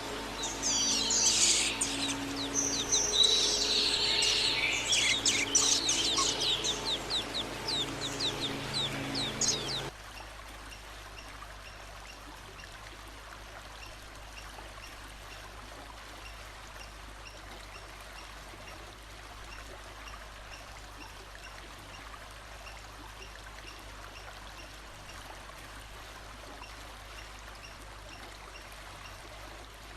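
A songbird singing loudly in fast runs of quick, downward-sweeping notes, cut off abruptly about ten seconds in. After that there is only the steady rush of flowing water.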